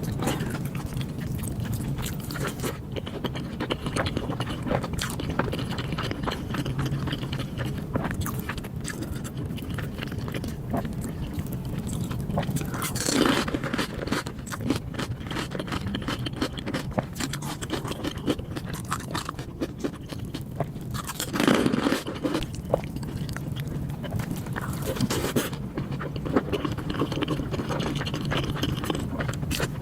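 Close-miked eating sounds: steady wet chewing and small mouth clicks, with two louder, longer bites partway through.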